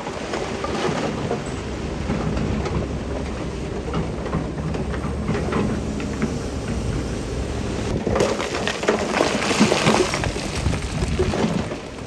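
Heavy earthmoving machinery working loose stone: a steady engine hum under a dense rumble and crackle of rocks tumbling and grinding, which grows louder and busier about eight seconds in, then eases near the end.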